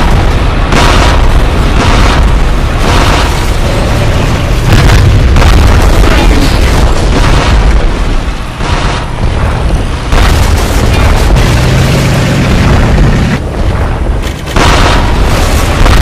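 Battle sound effects of tank cannon fire and shell explosions: sharp blasts follow one another about once a second over a constant heavy low rumble, easing briefly twice in the second half.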